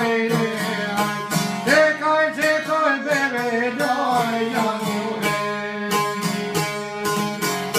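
A man sings an Albanian folk song to a long-necked lute strummed in quick, steady strokes. The voice stops about five seconds in, and the lute plays on alone to close the song.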